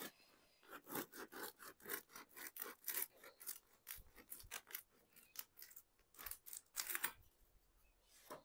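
Serrated bread knife sawing lengthwise through a large, crusty baguette in quick back-and-forth strokes, several a second, that stop about seven seconds in.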